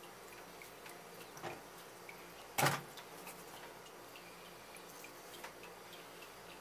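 A sharp knock about two and a half seconds in, with a fainter one about a second before it, amid faint scattered clicks: a raw tuna collar being handled and set down on a wooden cutting board.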